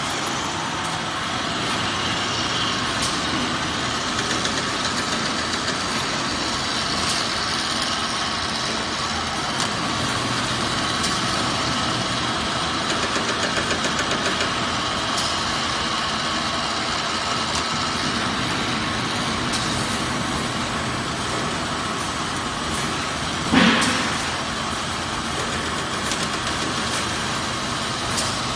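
Steady running noise of an automatic snack-bar production and flow-packing line: conveyor belts and packing machinery running together. A single loud knock comes near the end.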